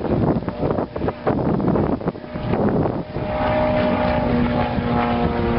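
Wind buffeting the microphone, then from about three seconds in the steady drone of an aerobatic airplane's engine passing overhead.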